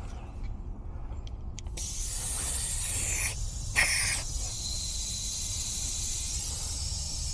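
Steady hiss of pressurized gas during a filter-drier replacement on an air-conditioning refrigerant line, starting about two seconds in, with a short break soon after.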